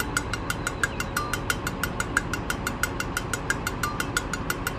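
Diesel engines of truck-mounted cranes running, a steady low rumble with a rapid, even ticking of about eight to nine clicks a second over it.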